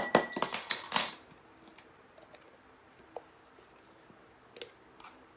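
A metal measuring spoon clinks and scrapes against glass jars while scooping dried dill weed. There is a quick cluster of clinks in the first second, then a single tap about three seconds in.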